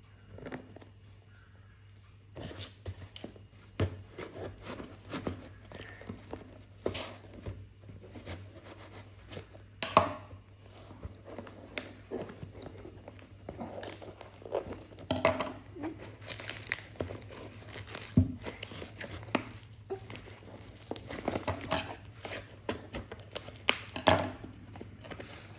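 Packaging crinkling and tearing as a parcel is opened by hand, in irregular bursts of crackles and rustles.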